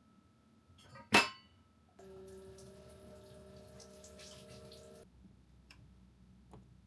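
A stainless steel mug set down on a counter with a sharp metallic clink. It is followed by about three seconds of a steady humming tone over a hiss that stops abruptly, and a faint click near the end as a cooktop knob is turned.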